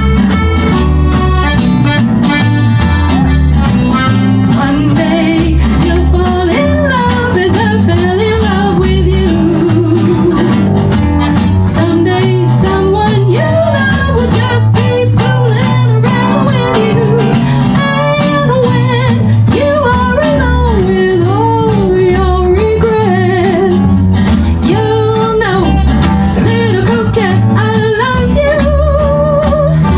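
Live gypsy-jazz (manouche) swing played by an acoustic band: accordion, mandolin, acoustic guitar and upright bass, with a steady rhythmic pulse under a winding melody.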